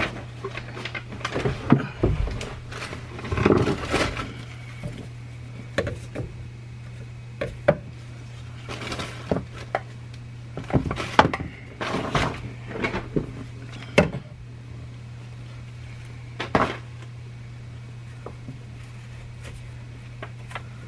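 Irregular knocks, clicks and rustling as parts and tools are handled while installing a garbage disposal under a kitchen sink, over a steady low hum.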